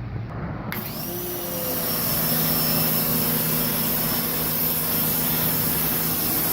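Greenworks electric pressure washer starting up about a second in: its motor spins up to a steady hum and the flat-spray nozzle gives a loud, steady hiss of water spray.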